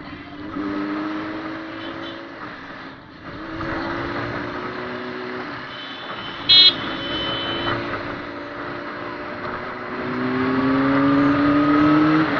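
Vehicle engines in road traffic, several pitches rising slowly as they pull away, with a short horn toot about six and a half seconds in.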